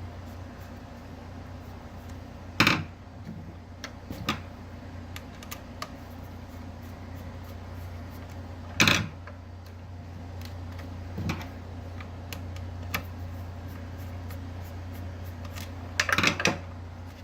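Sharp knocks and clicks of metal parts and tools handled while a mixer grinder's motor is taken apart: a few single knocks spread through, and a short clatter near the end, over a steady low hum.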